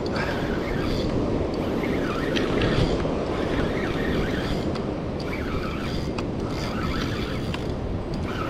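Steady wind buffeting the microphone over the wash of surf breaking on the rock ledge below.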